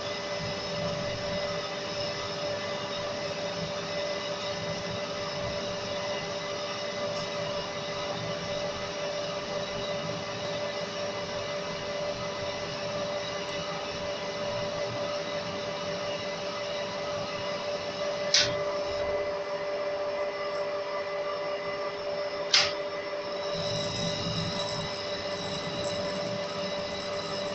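Metal lathe running with a steady gear hum while a carbide tool cuts the end of a small steel bar held in the chuck. Two short sharp high-pitched squeaks stand out about 18 and 22 seconds in, and the cutting noise grows fuller for the last few seconds.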